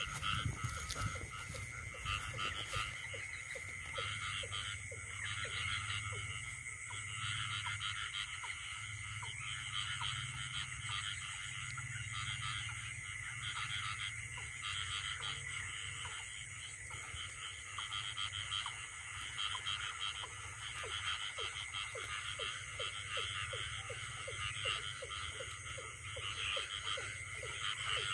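Chorus of many frogs calling at night, a dense run of repeated croaks over a steady high trilling. A few knocks and rustles come in the first few seconds.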